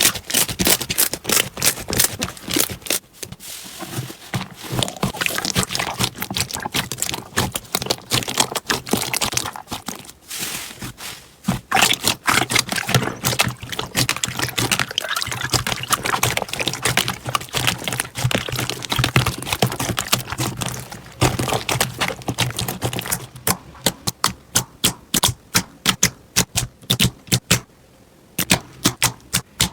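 Slime being squished, pressed and stretched by hand, giving dense wet clicks, crackles and pops, with a run of separate rapid clicks near the end.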